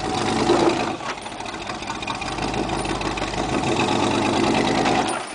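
GMC pickup's engine running under load as the truck crawls over rocks, louder in the first second.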